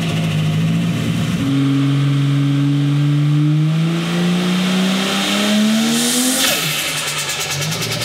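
Turbocharged RB30 straight-six in a Holden VL, its revs climbing steadily for several seconds. About six and a half seconds in, the throttle is shut, giving a sudden rush of air: the turbo dose (compressor surge flutter) out through the dose pipe. The engine then drops back to a low steady idle.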